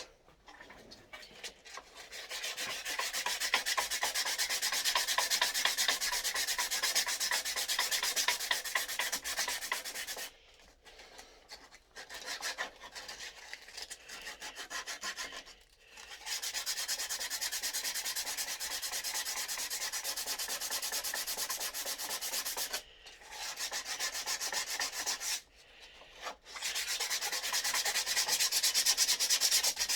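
Sandpaper rubbing on a scroll-sawn wooden puzzle in quick back-and-forth strokes, stopping briefly a few times.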